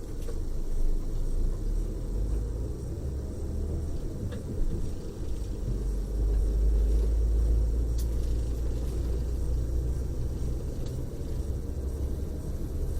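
Coach bus driving, heard from inside the passenger cabin: a steady low rumble of engine and road noise.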